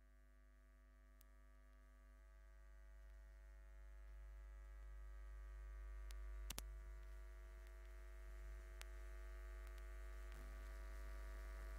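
Near silence for the first few seconds, then a faint, steady electrical mains hum from the microphone and sound system, slowly getting louder, with a few light clicks.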